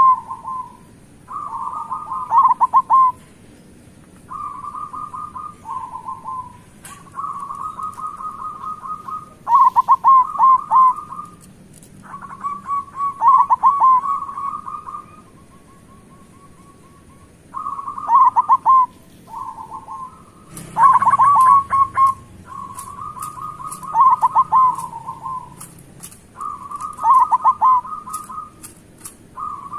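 Local zebra doves (perkutut) cooing: repeated phrases of rapid, rolling coos, one after another with short pauses between them.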